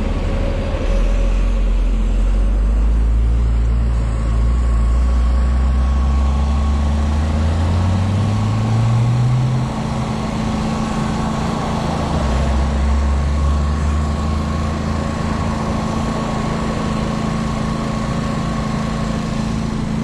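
A motor engine running, its low tone climbing steadily in pitch for several seconds as it speeds up, then falling back about ten seconds in and holding level again a little later, over a steady hum.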